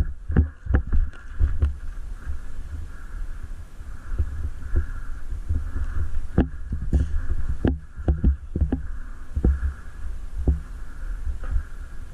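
Irregular low thumps and knocks, several a second at times, over a faint steady hum.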